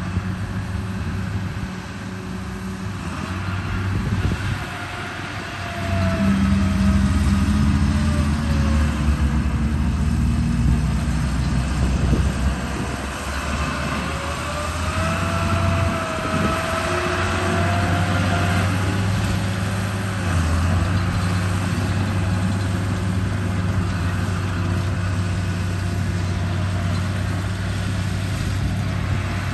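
Radio-controlled construction truck running: a steady low drone, louder from about six seconds in, with a motor whine that glides down in pitch around five seconds in and rises and falls again around fifteen seconds in.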